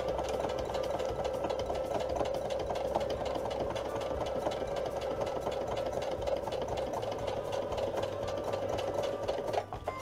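Electric sewing machine running steadily, stitching through sew-on Velcro tape and fabric: a level motor hum with rapid needle strokes that stops abruptly near the end.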